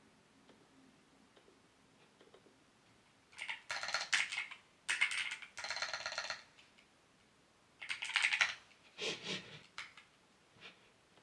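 Aggressive typing on a mechanical keyboard: quick runs of key clacks, each a second or so long, beginning about three seconds in after a near-quiet stretch.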